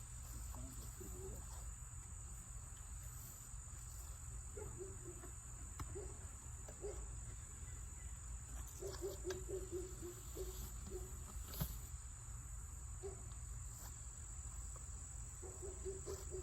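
Honeybees buzzing faintly around an opened hive, with individual bees flying close past several times, over a steady high-pitched whine and a low rumble.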